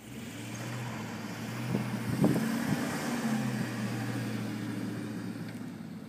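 A motor vehicle's engine running with a steady low hum, heard over wind hiss in a snowstorm, with a few brief louder knocks about two seconds in.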